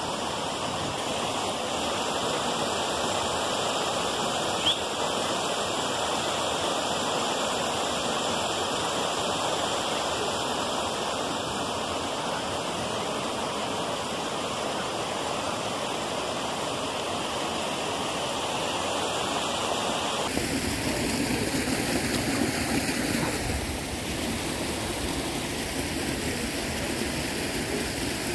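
Running water rushing steadily, as from a stream or the water flowing through trout tanks. About two-thirds of the way through it changes abruptly to a deeper, rumblier rush.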